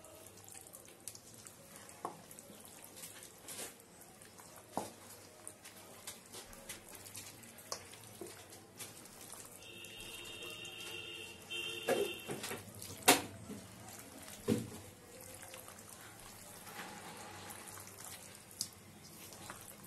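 Wet squelching of hands kneading pieces of mutton in a yogurt and spice marinade in a steel bowl, with scattered clicks and knocks against the bowl and one sharp knock a little after the middle. A brief tone in two parts sounds about halfway through.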